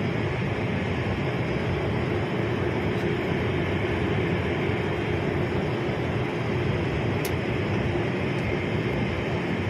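Steady cabin noise of a jet airliner in flight: an even rush of engine and airflow with a low steady hum underneath.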